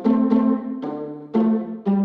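Music: chords of sharply struck, pitched notes that ring and fade, a new one about every half second.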